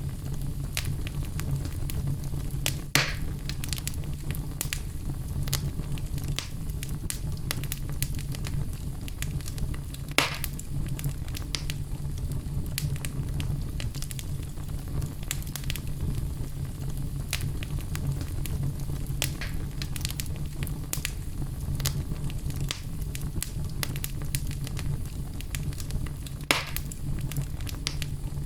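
Wood fire in a fireplace crackling steadily over a low rumble, with frequent small snaps and three louder pops spread through.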